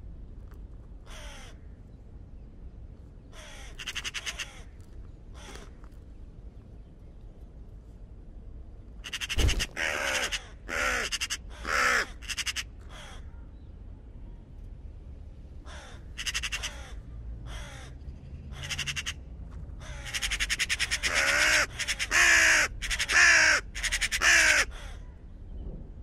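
Raven calling: harsh, croaking caws, a few spaced calls at first, then quick runs of louder calls in the second half of the clip.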